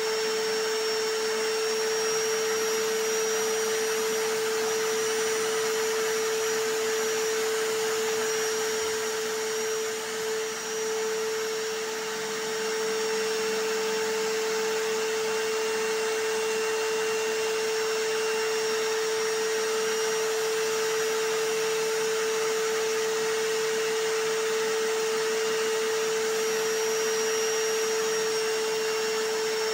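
Vacuum cleaner running steadily, mixed with a hammer drill, as a continuous noise track with a strong steady whine. The level dips briefly about ten seconds in.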